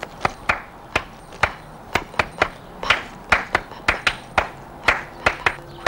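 Hands clapping, a quick, uneven string of sharp claps at about three a second.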